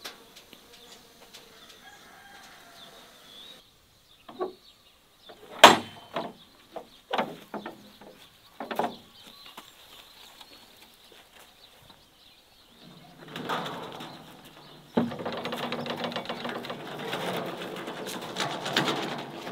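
Wooden gate with iron bands being opened: a run of sharp metal clacks and knocks from its latch, then a sustained rough scraping and creaking as the gate swings open.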